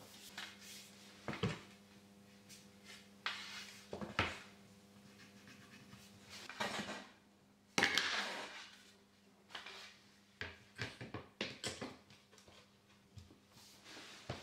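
Wooden floorboards being handled and laid onto underlay: scattered knocks as boards are set down and pushed together, with short sliding scrapes, the loudest knock about eight seconds in. A faint steady hum sits underneath.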